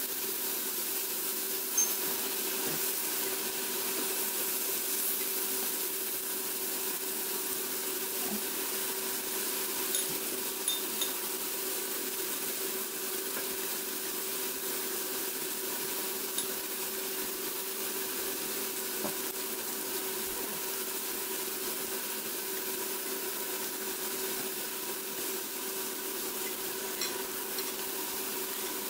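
Meat and vegetables sizzling steadily on a round tabletop barbecue grill plate, with a steady low hum underneath and a few light clicks of chopsticks.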